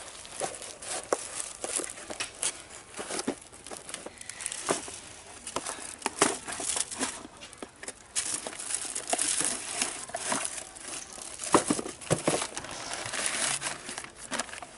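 Plastic wrap and paper packaging being crinkled and torn off a cardboard box, with irregular rustling and sharp crackles.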